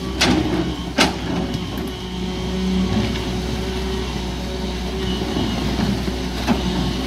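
JCB JS200N tracked excavator's diesel engine running steadily, with a couple of sharp knocks in the first second and a fainter one near the end.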